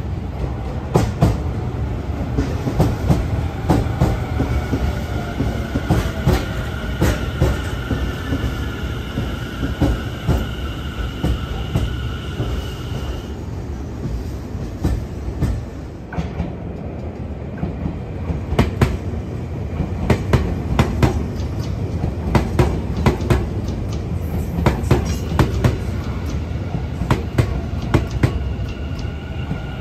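Tobu Railway electric train running through a station, a continuous low rumble with many sharp clacks of wheels over rail joints and points. A high steady tone rides over it, stops about 13 seconds in, and comes back near the end.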